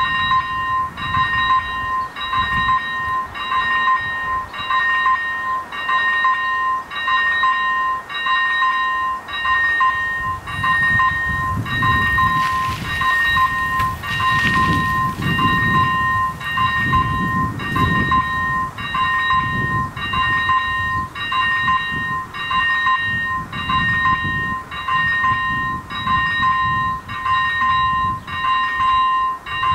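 Czech railway level crossing's electronic warning bell ringing in even strokes, a little faster than one a second, while a train rumbles past in the middle.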